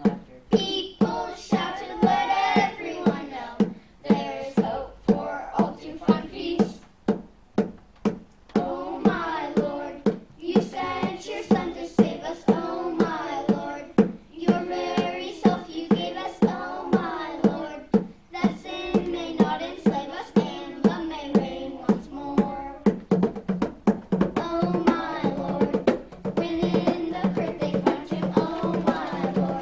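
A group of children singing a song together over music with a steady drum beat.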